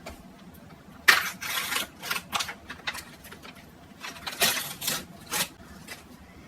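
Plastic snack packaging being handled and opened: a string of short crackles and clicks, the longest burst about a second in.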